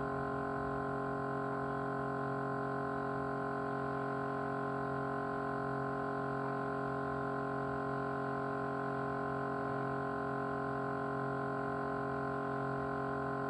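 Small motor running steadily with a vibrating hum, a cluster of steady tones that neither rises nor falls.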